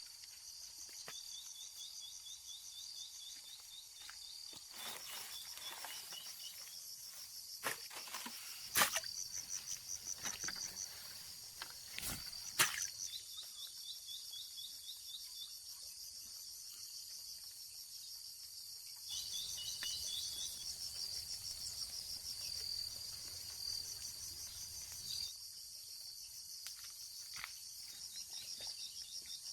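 Insects, crickets among them, chirping steadily in rapid pulsed trills. A few sharp knocks come about a third of the way in, and a low rumble rises for a while after the middle.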